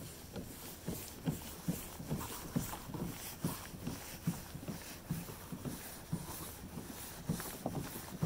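Water slapping and knocking against a kayak's hull as it is paddled through ice-strewn water, a steady run of short, irregular knocks, two to four a second.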